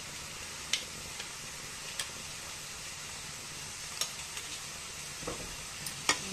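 Fish braising in an aluminium pot, sizzling steadily, with a few sharp taps scattered through.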